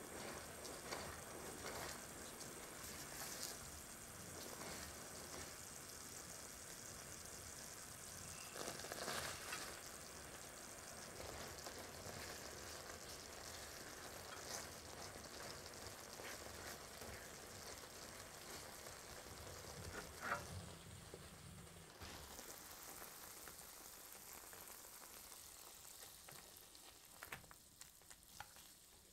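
Florentine topping of butter, sugar, cream and honey bubbling in a stainless-steel saucepan, a faint steady sizzle with small pops, as a silicone spatula stirs it and sliced almonds are mixed in. The sizzle fades near the end.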